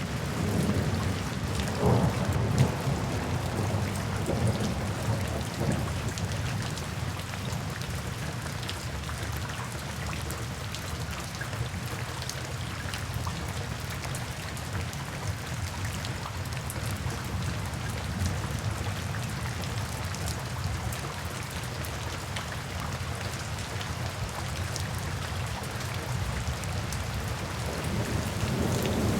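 Thunderstorm: steady rain falling with low rolling thunder that swells a couple of seconds in, fades to a distant rumble and builds again near the end.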